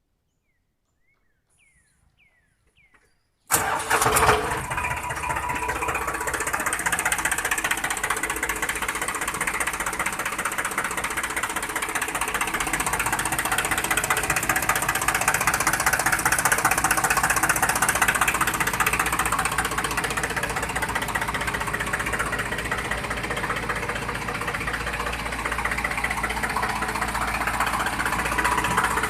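An engine sound starts abruptly about three and a half seconds in, after near silence with a few faint chirps, and then runs steadily.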